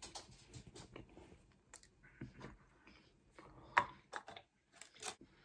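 Close-miked chewing of a mouthful of pizza crust: soft, irregular wet clicks and ticks, with a few sharper clicks near the end.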